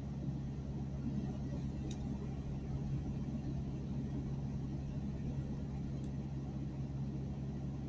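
A steady low hum and rumble of background noise, even throughout, with no distinct events.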